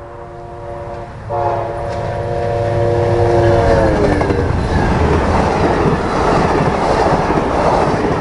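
Train passing with its multi-chime air horn sounding. The horn chord gets louder about a second in and slides down in pitch around four seconds in as the train goes by. After that comes the steady noise of the train rolling past on the rails.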